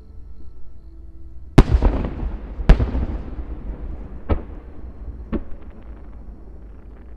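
Aerial firework shells bursting: four booms, the first two loudest, each trailing off in a rolling rumble.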